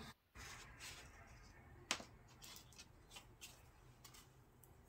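Faint rustling and light taps of a cardstock box piece being handled and moved by hand, with one sharper click about two seconds in.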